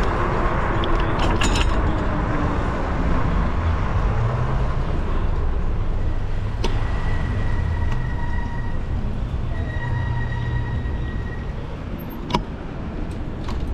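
Wind buffeting the microphone and road rumble while riding a bicycle through city traffic, growing a little quieter as the bike slows near the end. A faint high whine comes and goes in the middle, and there is a sharp click near the end.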